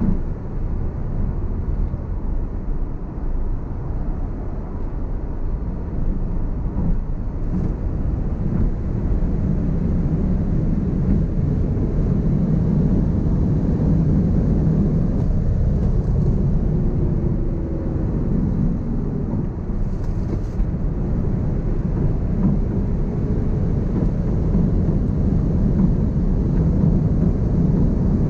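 Tyre roar and wind noise heard inside the cabin of a Tesla Model S Plaid, an electric car, travelling at well over 200 km/h. It is a steady low rumble that grows slightly louder about a third of the way in.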